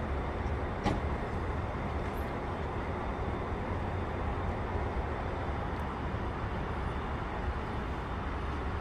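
Steady low rumble of vehicle engines and outdoor traffic noise, with a single light click about a second in.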